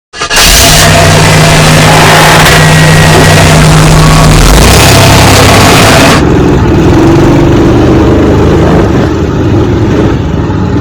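Drift go-kart's engine sound, very loud and distorted, starting abruptly. It has a steady low hum under a harsh hiss, and the hiss drops away about six seconds in.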